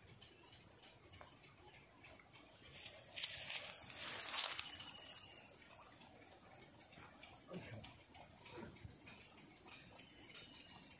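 Steady high-pitched drone of insects, with water splashing twice, about three and four and a half seconds in, as a person moves through a pond.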